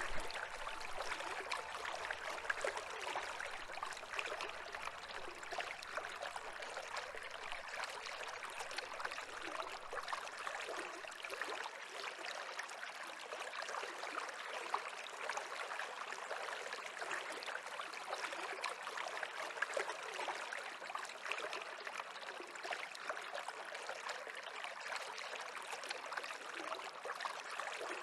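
A stream running steadily, with a constant babble of flowing water.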